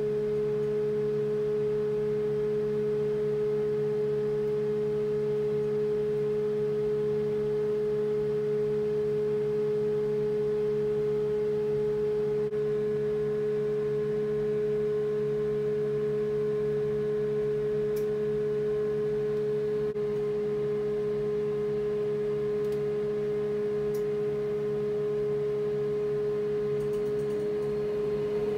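Steady electronic drone: one clear held tone with a lower hum beneath it, and a faint rising glide near the end.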